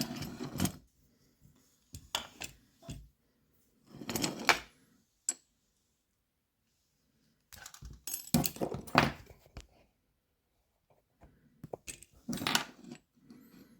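Small metal lock parts and tools clinking and scraping in several short bursts with pauses between, as a tiny camlock is taken apart by hand.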